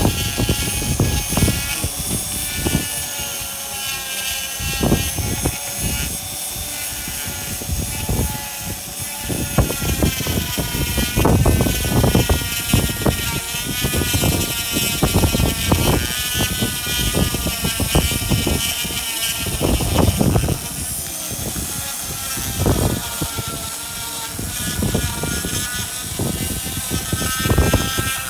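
Straight die grinder with a small cylindrical burr grinding limestone, refining the edges of a carved relief. The motor whines steadily, its pitch dipping and recovering as the bit bites, with irregular grating scrapes where the burr meets the stone.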